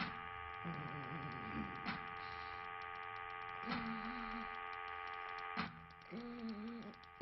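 Sound-designed ambience of a vast machine: a steady, quiet hum of several held tones, with a sharp click about every two seconds and three short wavering pitched whirs.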